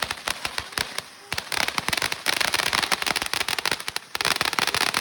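Consumer fireworks going off: a run of sharp pops and snaps that thicken into dense crackling twice, about a second and a half in and again near the end.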